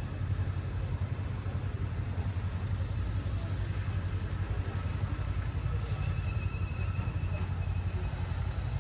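A motor vehicle engine running steadily, a low rumble with a fast flutter.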